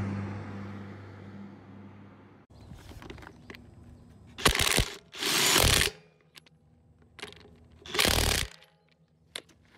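Car engine sound dying away over the first couple of seconds and cutting off. Then come three short, loud bursts of rushing noise, the last about eight seconds in, with a few faint clicks.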